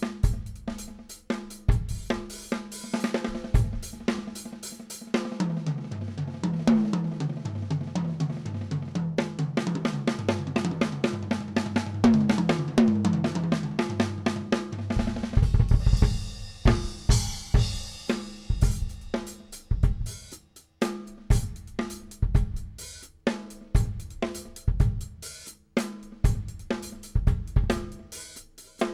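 Acoustic drum kit (an Oak Custom Series kit) played solo. It opens with a groove, then about five seconds in turns to fast rolls around the toms that step down in pitch over and over, and near the middle goes back to a groove with heavy bass drum and cymbals.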